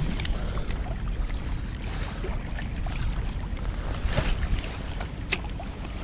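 Wind buffeting the microphone over small waves lapping on a rocky shore. About four seconds in there is a brief swish as a spinning rod casts a lure, then a sharp click a second later as the spinning reel's bail closes.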